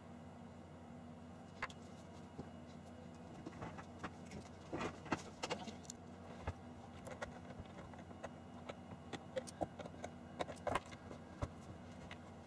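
Irregular light clicks, taps and rattles of a white plastic case and its wiring being handled and pried apart, busiest about five seconds in and again around ten to eleven seconds in, over a low steady hum.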